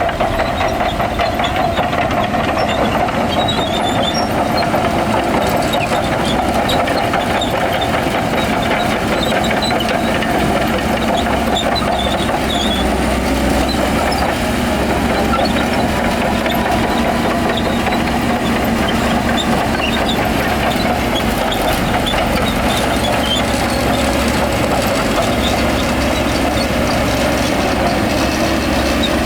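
Diesel engine of heavy earthmoving machinery running steadily, a continuous low rumble with no breaks.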